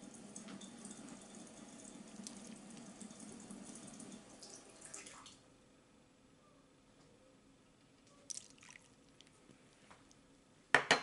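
Kitchen tap running water, shut off about five seconds in. A few small clicks follow, then a sharp knock near the end.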